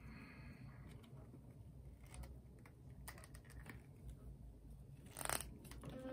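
Faint handling clicks of plastic parts as the bottom end cap is pressed back onto a Philips Sonicare electric toothbrush handle, with one sharper snap about five seconds in.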